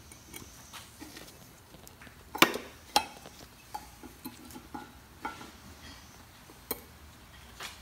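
New front brake pads being dry-fitted into a Dodge Caliber's caliper bracket and its metal pad clips: a few sharp metal clicks, the loudest a little over two seconds in and again at three seconds, with lighter ticks and small rattles between them.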